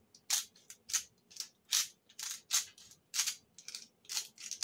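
A small spice bottle shaken hard over food in quick repeated strokes, about two to three dry rattling shakes a second, the powder and lid rattling inside; the bottle sounds fuller than it is.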